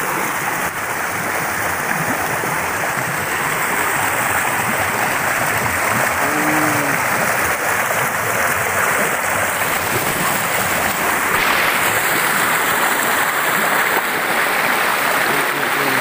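Swift rocky river rushing over stones and small rapids: a loud, steady rush of water.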